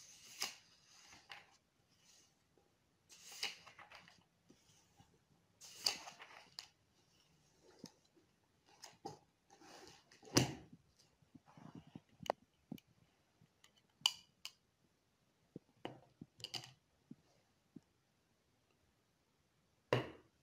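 Scattered small handling sounds with quiet gaps: paper and book pages rustling, a few sharp clicks and knocks, and one heavier thump about ten seconds in.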